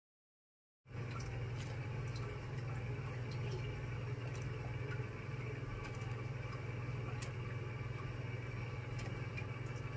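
Pickling brine of vinegar and vegetables simmering in a pot, with faint bubbling and scattered small pops over a steady low hum. It starts abruptly about a second in.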